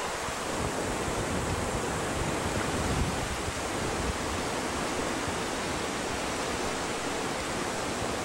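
Steady rush of whitewater rapids: a continuous roar of tumbling river water.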